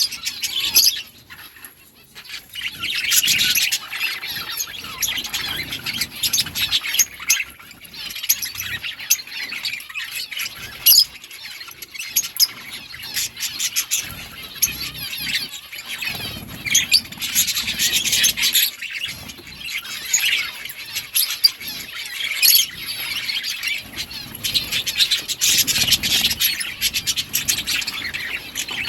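A flock of budgerigars chirping and chattering continuously, the busy chatter swelling and easing, with sharp clicks scattered through it.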